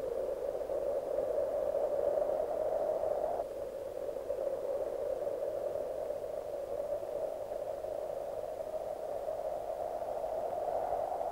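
Steady hiss like radio static, in a narrow band of middle pitch, turning slightly duller about three and a half seconds in.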